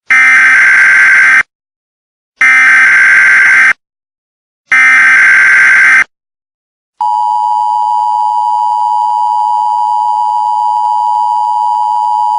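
Emergency Alert System tones. There are three loud bursts of the SAME digital header data, each about a second and a half long with short silences between them. About seven seconds in, the steady two-tone EAS attention signal starts and holds for about five seconds. Together they announce that an emergency alert message is about to be broadcast.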